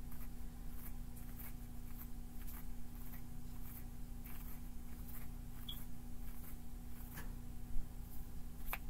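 Tarot cards being shuffled in the hands: faint, irregular soft ticks of cards slipping against each other, over a steady low electrical hum, with the ticks turning crisper right at the end.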